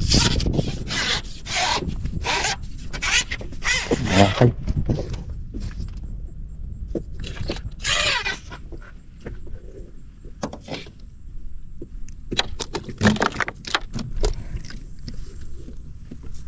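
Water hyacinth scraping and rustling against the hull of a small plastic boat as it is pushed through the weed bed. A quick run of repeated scrapes for the first few seconds, then sparser, softer ones.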